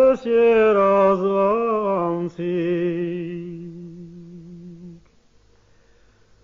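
A solo male voice sings an Armenian song in a slow, ornamented phrase. The phrase turns around one pitch and then settles into a long held note that fades away about five seconds in, followed by a short pause.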